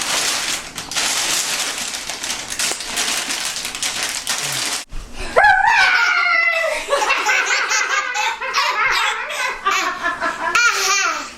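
An even rustling noise, then after a sudden break about five seconds in, a baby squealing and laughing. The high squeals slide up and down in pitch and go on to the end.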